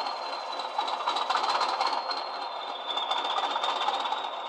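Recorded Class 20 diesel engine sound from a DCC sound decoder, played through the small speaker of a model locomotive, running steadily as the engine warms up during its cold start. A thin high whine sits over it and drops slightly in pitch a bit over halfway through.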